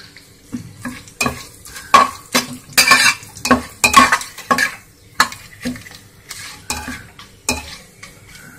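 Metal spatula scraping and clinking against the inside of an aluminium pressure cooker, about two strokes a second, stirring whole spices frying in hot mustard oil with a light sizzle.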